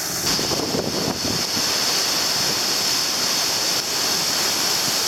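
Steady rush of water pouring through the gates of a canal lock's water-control structure, with wind buffeting the microphone, most in the first second or so.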